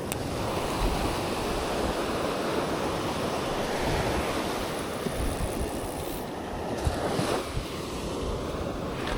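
Ocean surf washing onto a beach in a steady rush that swells and eases, with wind buffeting the microphone.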